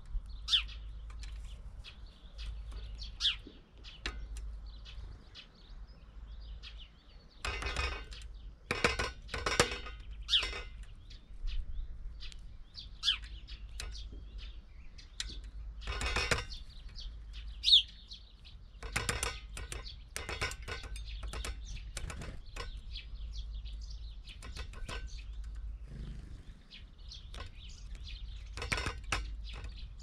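Great spotted woodpecker pecking at a bird feeder in bursts of rapid hard taps, several times, with short high bird chirps in between.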